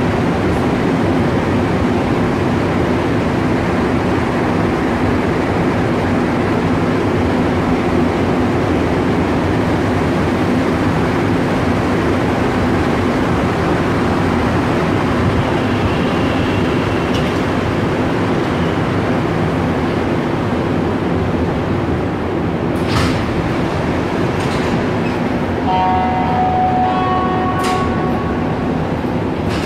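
Rubber-tyred Montréal Métro train running steadily, heard from inside the car. Near the end it slows into a station, with a few sharp clicks and short whining tones.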